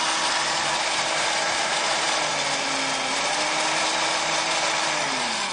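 Countertop jug blender's motor running steadily as it grinds walnuts to a powder. Its pitch dips for a moment about halfway through, and the motor winds down as it is switched off near the end.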